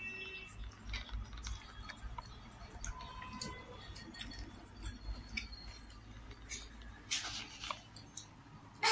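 Eating sounds: chewing, with small scattered clinks and taps against a plate and a louder rustle about seven seconds in.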